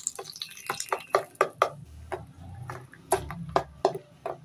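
Metal spoon stirring chutney in a steel bowl, clinking irregularly against the sides, with a low hum underneath from about two seconds in.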